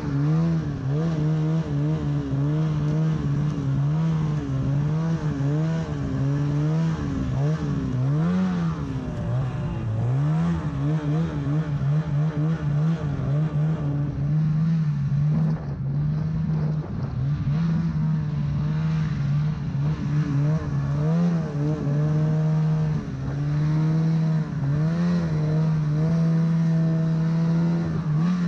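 Snowmobile engine revving hard through deep powder, its pitch rising and falling as the throttle is worked, holding steadier near the end, with wind buffeting the microphone.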